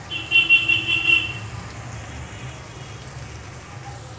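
A short, high-pitched horn-like toot lasting about a second and a half near the start, over a low steady background.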